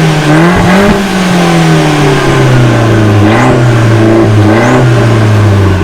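Abarth 695 Biposto's four-cylinder engine breathing through a full titanium Abarth exhaust, being revved: the note rises about a second in, falls away slowly, then gets two short blips of throttle.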